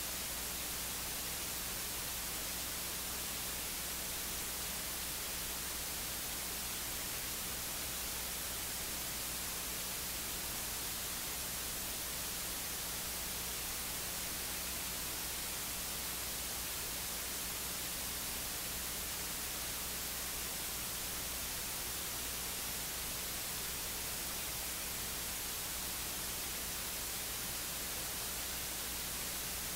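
Steady static hiss with a low electrical hum beneath it and no voice: the sound from the pulpit has dropped out of the recording, leaving only the audio line's noise.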